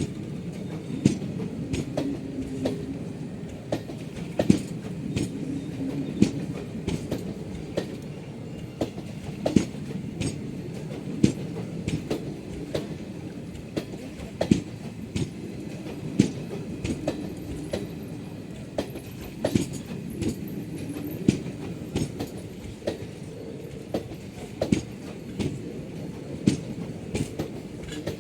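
Passenger train running on the rails: a steady low rumble of the wheels, with sharp clicks as they cross rail joints, roughly one every second.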